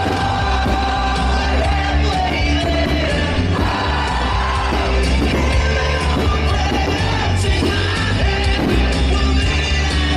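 Song with a singing voice over a steady, heavy bass beat and drums.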